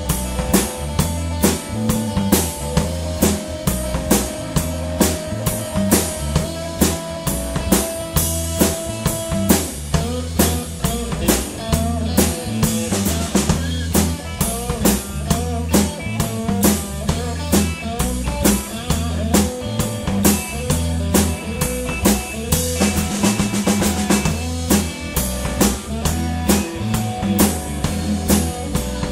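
A live blues band plays an instrumental stretch with harmonica, electric guitar, bass guitar and a drum kit keeping a steady driving beat. The harmonica, played into a vocal microphone, holds one long note for several seconds and then breaks into bent, wavering notes.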